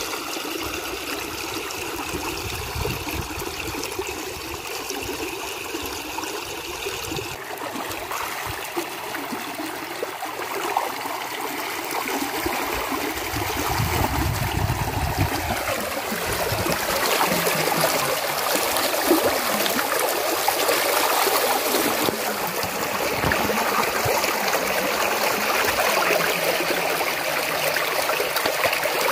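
Muddy water rushing through a narrow channel into a bamboo-and-net fish trap, with splashing as hands work the net in the current. It grows a little louder about halfway through.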